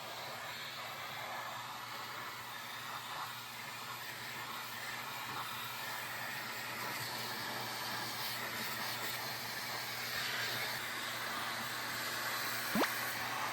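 Vacuum cleaner running steadily with a hose attachment sucking up dust, a continuous airy hiss. A brief sharp click near the end.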